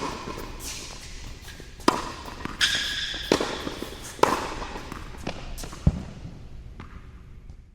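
Tennis rally: a tennis ball being struck, with about six sharp pops at irregular intervals of roughly a second, each with a short echo. A brief high squeak comes about two and a half seconds in, and the sound fades out near the end.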